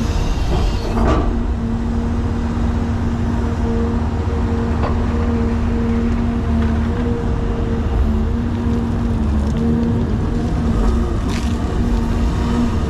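Caterpillar 336 hydraulic excavator's diesel engine running steadily under working load, a constant low hum. A few brief knocks or clanks sound about a second in, around the middle and near the end.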